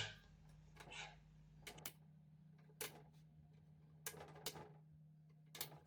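Faint, scattered clicks and taps, about seven in a few seconds, of small white plastic pegs being dropped and pushed into the locating holes of a flat-pack cabinet, over a faint steady low hum.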